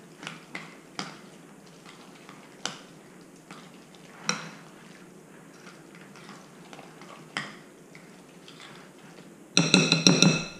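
A utensil stirring a thick, wet fish-cake mixture in a glass mixing bowl, with scattered light clinks and knocks against the glass. A louder clatter with some ringing comes near the end.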